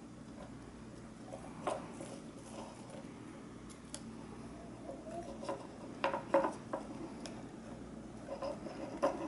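Scattered small clicks and taps of plastic and metal drone gimbal parts being handled and fitted together by hand, with a cluster of sharper clicks about six seconds in.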